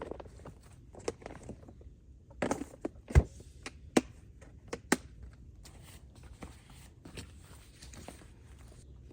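Irregular knocks and clicks over light rustling, the loudest a heavy knock about three seconds in, followed by two sharp clicks.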